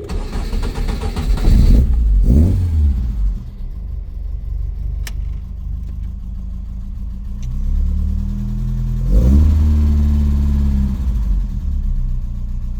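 Ford Escort Mk1's four-cylinder petrol engine cranked and catching, briefly revving up about two seconds in, then idling. It is blipped again about nine seconds in and settles back to idle, just after an oil change with fresh 20W50.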